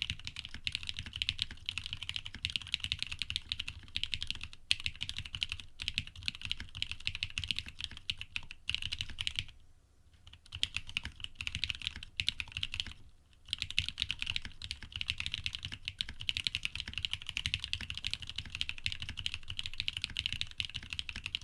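Fast, continuous typing on an AR87 custom mechanical keyboard built with lubed Cream switches on an aluminium plate. The typing stops briefly twice, about ten and thirteen seconds in.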